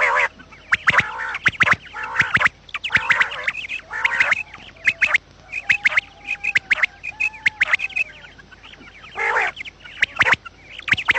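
Quails calling: many harsh, rapid chattering calls and sharp clicks in irregular overlapping bursts. This is a quail call recording used to lure quail.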